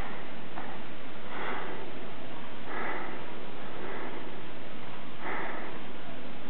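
Newborn giant panda cub hiccuping, a short breathy catch about every second and a half, over the incubator's steady hiss.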